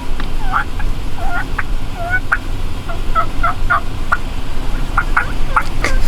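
Turkey gobbling: a long run of short, quick yelping notes over a steady low rumble.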